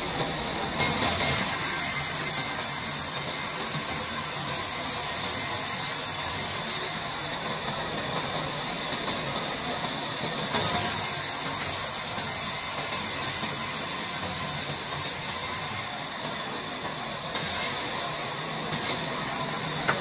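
Large sawmill band saw running and cutting lengthwise through a timber slab, a steady noisy sound that turns brighter and slightly louder for stretches of several seconds as the blade works through the wood.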